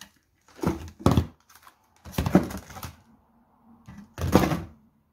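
Scentsy wax bar packs in plastic wrap being taken from a box and set down on a tabletop: a handful of separate knocks and short handling noises, with pauses between.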